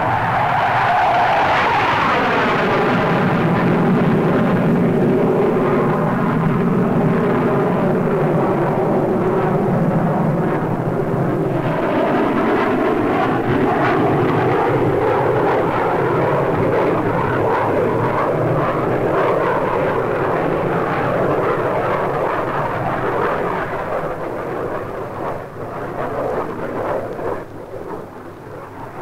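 De Havilland DH.110 twin-jet fighter flying a display pass, its jet noise falling in pitch over the first seconds as it goes by. Around twelve seconds in it brightens again as the jet comes back round, then fades over the last few seconds.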